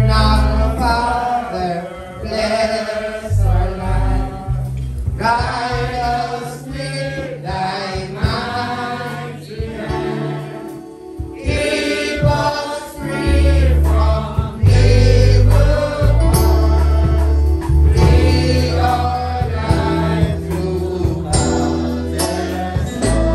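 Gospel singing led by a man's voice on a microphone, with several voices joining in, over amplified guitar accompaniment with strong, steady bass notes.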